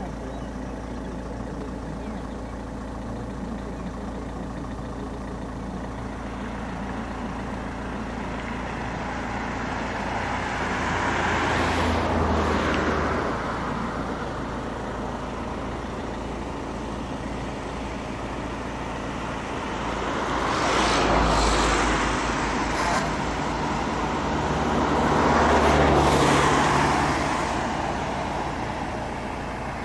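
A vehicle engine idling steadily, while other vehicles pass by on the road: one about twelve seconds in and two more in the second half, each rising and fading over a few seconds.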